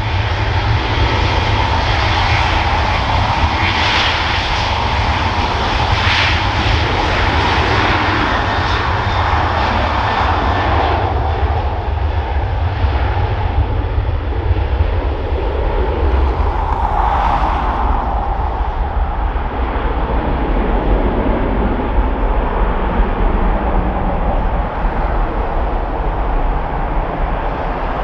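Airliner engines running loud and steady, with strong wind buffeting the microphone in a heavy low rumble.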